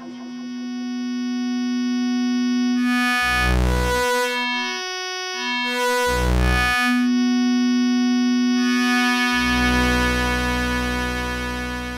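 Eurorack modular synthesizer drone: a steady pitched tone whose overtones shift as signals are re-routed and blended through a Make Noise Jumbler. A deep bass layer cuts in briefly twice, about three and six seconds in, and comes back for good about nine seconds in.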